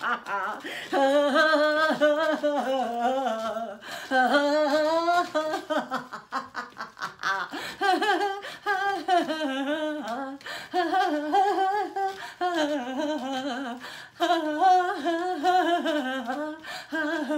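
A woman laughing on purpose as a laughter-yoga exercise: a string of long, drawn-out bouts with a wobbling pitch, each broken off by a short breath.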